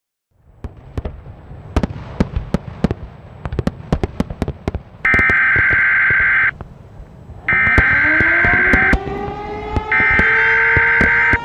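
Fireworks going off, a rapid run of bangs and crackles, followed by three bursts of Emergency Alert System digital header tones (SAME data bursts), each about a second and a half long. Partway through the second burst a civil defense siren starts winding up, its pitch rising and then holding steady.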